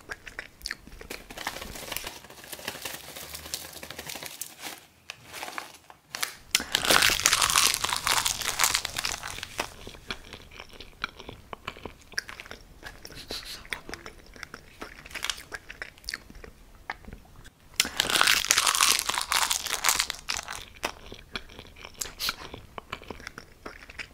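Plastic bag of dried chili peppers crinkling and crackling as it is handled and opened, with two louder stretches of rustling, about a quarter of the way in and again about three-quarters of the way in.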